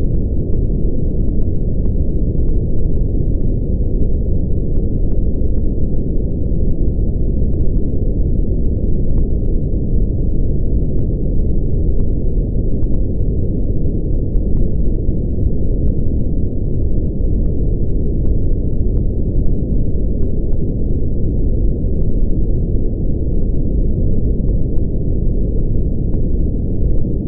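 Brown noise (red noise): a steady, unchanging deep rushing noise, strongest in the bass and with almost nothing in the highs.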